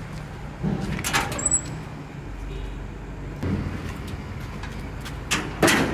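Corrugated sheet-metal gate being unlatched and pulled open, with metallic clanks and rattles about a second in and again, loudest, near the end.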